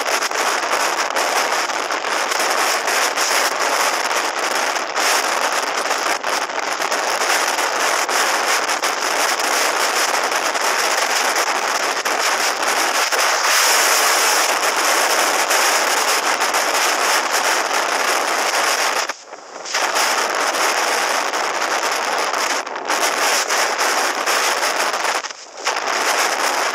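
Wind buffeting the microphone of a helmet-mounted camera on a moving motorcycle: a steady rushing hiss full of crackles, briefly dropping away twice in the second half.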